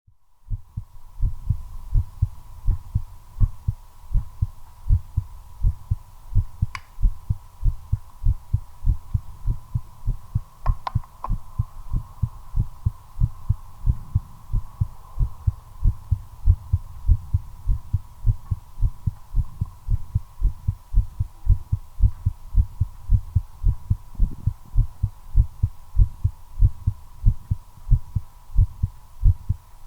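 A person's heartbeat, picked up close against the chest, with a steady, regular beat of deep low thumps. A steady high hum sits behind it, and a few faint clicks come about seven seconds in and around eleven seconds.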